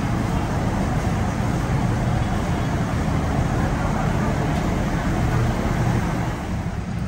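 Diesel railcar engine idling at the platform: a steady low rumble that eases slightly near the end.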